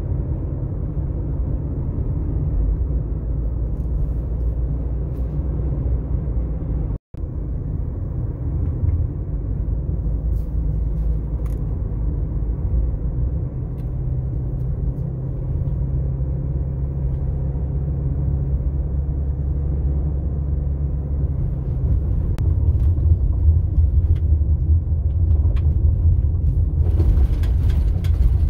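Steady low rumble of engine and tyre noise heard inside a car's cabin while driving. It cuts out for an instant about seven seconds in. Near the end a rougher hiss joins it as the tyres run on a dirt and gravel road.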